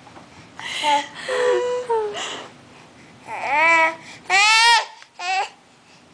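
An infant babbling: several short, high-pitched vocal squeals whose pitch rises and falls.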